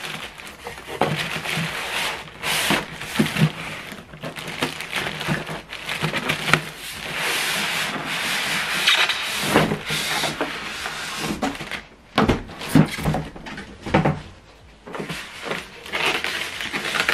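Foam packing end caps and plastic wrap rubbing and scraping against a cardboard box as a boxed inkjet printer is slid out and lifted, with a few knocks.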